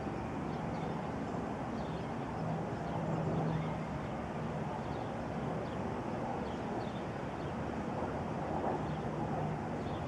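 Steady outdoor background noise with a low hum and faint high chirps now and then; the siren itself is not sounding.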